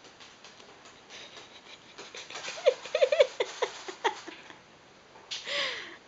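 Light clicks and taps of a small bead and a parrot's claws and beak on a wooden floor. About halfway through comes a quick run of short vocal sounds, each rising and falling in pitch, and near the end one longer falling vocal sound.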